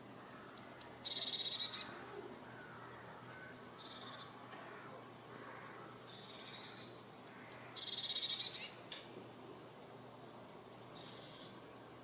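Blue tit singing: five phrases, each of two or three thin high notes followed by a lower trill, a few seconds apart.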